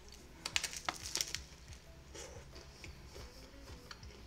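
Biting into a shrimp taco with slaw: a quick cluster of crackly crunches about half a second to a second and a half in, then quieter chewing.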